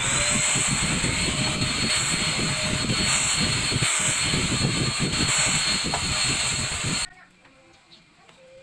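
Vacuum cleaner motor running steadily with a high whine, cutting off about seven seconds in.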